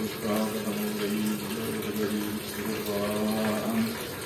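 Milk draining off the abhishekam board in a thin stream into a steel basin, trickling and splashing steadily, under a voice chanting on one steady pitch with short pauses.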